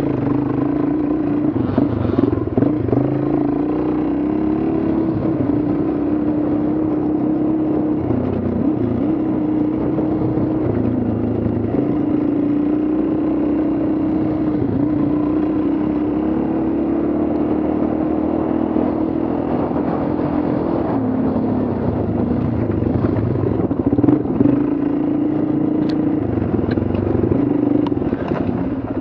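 Dual-sport motorcycle engine running at a steady trail pace, its note rising and falling a little with the throttle.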